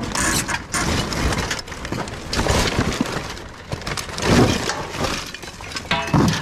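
Scrap metal and glass clattering and knocking as a dumpster's contents are dug through and pulled about, with glass clinking and breaking; the loudest clatter comes about four seconds in.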